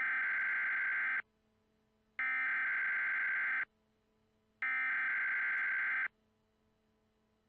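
Emergency Alert System SAME header: three bursts of digital data tones, each about a second and a half long with about a second's gap between them. This is the coded header that opens an EAS alert, ahead of the two-tone attention signal.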